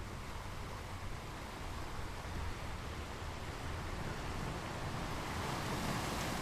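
Steady wash of sea and wind noise on the microphone, with a fluctuating low rumble and a hiss that swells slightly near the end.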